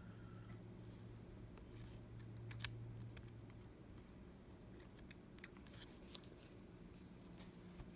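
Faint, scattered small clicks and taps from handling the phone's small parts and tools on the work surface, over a low steady hum that stops a little under four seconds in.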